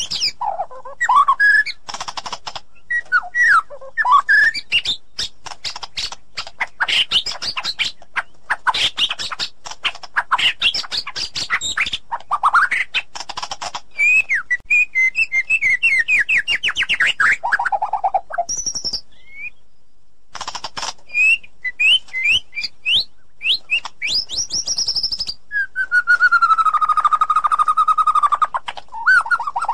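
White-rumped shama (murai batu) singing a long, varied song: fast runs of sharp notes and rapid trills mixed with rising and falling whistles. A short pause comes a little past the middle, and a long held whistle comes near the end.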